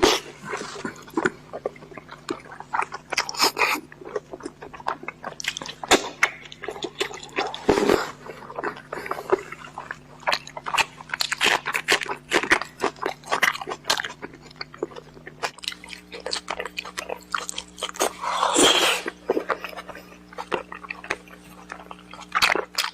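A person chewing and crunching fish close to the microphone, with a steady run of small crunches and clicks and a couple of louder bites about 8 and 19 seconds in.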